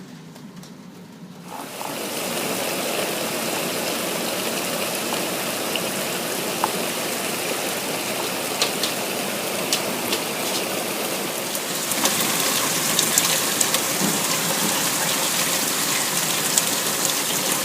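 Thunderstorm rain falling steadily, an even hiss with scattered drops ticking close by. It comes up suddenly about a second and a half in and gets louder about twelve seconds in.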